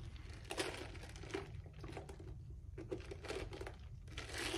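Someone drinking soda from a thin plastic cup: sips and swallows, with the plastic crinkling in the hand and ice shifting, in several short bursts.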